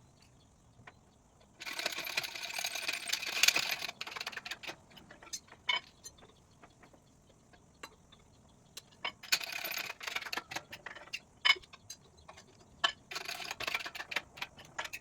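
Rapid mechanical clicking and rattling in three bursts of a second or two each, with scattered sharp clicks and knocks between them.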